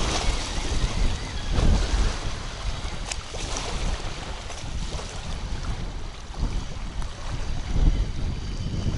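Wind buffeting the microphone in uneven gusts, with waves lapping at the water's edge.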